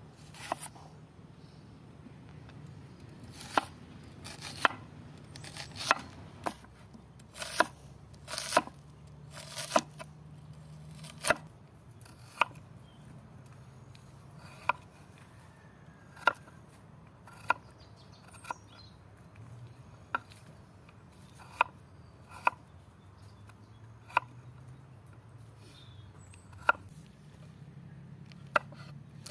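Knife chopping food on a cutting board: sharp, separate strokes at an uneven pace of roughly one a second, some louder than others.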